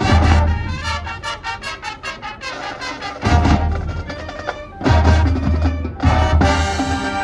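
High school marching band playing, brass and drumline together: the full band comes in suddenly and loudly, then punches out heavy accented hits with deep bass-drum booms under sustained brass chords.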